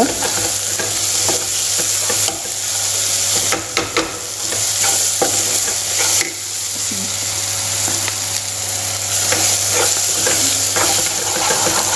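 Onion-tomato masala sizzling in hot oil in a pan while a metal spoon stirs and scrapes it, with scattered clicks of the spoon against the pan.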